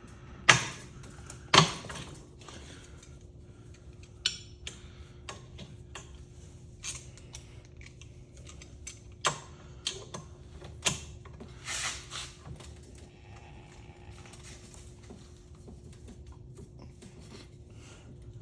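Metal clinks and knocks of hand tools and parts as an old ceiling fan is pried and twisted apart for scrap: two sharp knocks in the first two seconds, then lighter clicks and taps every second or two, over a faint steady hum.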